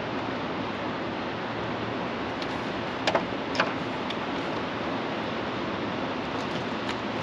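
Steady rushing noise with no pitch to it, and two sharp clicks a little after three seconds in.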